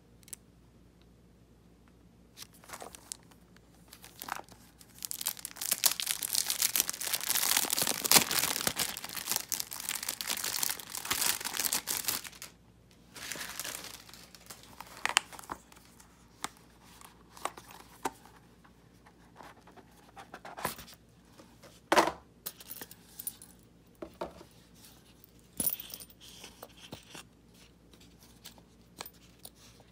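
Plastic packaging being torn and crinkled for several seconds while a gift box is unwrapped. It is followed by scattered light clicks and rustles as the box and a metal keychain are handled.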